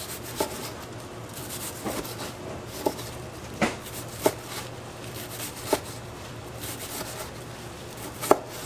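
About seven sharp, irregular knocks and clinks, some with a brief ring to them, the loudest near the end, over a steady low hum.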